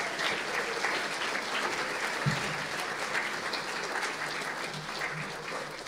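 Audience applauding, a steady crackle of many hands clapping, with one brief low thump a little over two seconds in.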